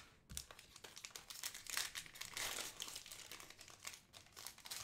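Plastic wrapper of a retail pack of football trading cards crinkling and tearing as it is picked up and ripped open: a dense run of sharp crackles, loudest around the middle.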